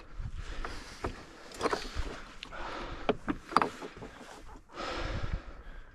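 Irregular scrapes, knocks and rustles of a climber scrambling over rock, with a louder rush of noise about five seconds in.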